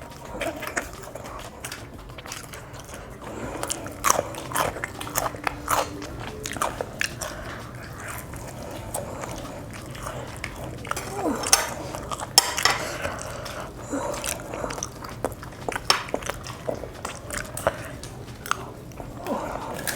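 Biting and chewing crunchy batter-fried snacks, with irregular crisp crunches and wet mouth sounds, thickest around four to six seconds in and again around eleven to thirteen seconds in.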